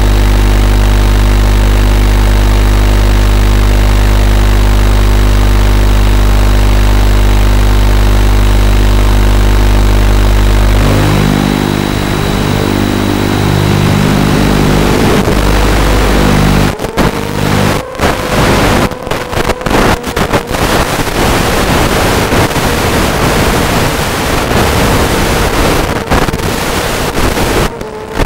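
Onboard audio of a ZMR250 racing quadcopter with DYS 1806 2300kv motors: a steady, loud buzz while it sits on the ground, then from about 11 seconds in the sound of its motors and 5040 propellers in flight, a wavering motor tone over a rushing noise. From about two-thirds of the way in, the sound cuts out briefly several times.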